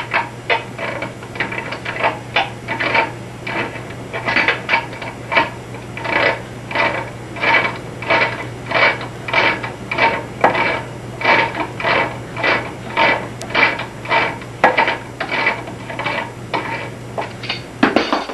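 Wrench turning a faucet mounting nut off its tailpiece: a steady rhythm of short metal-on-metal scraping strokes, about two a second.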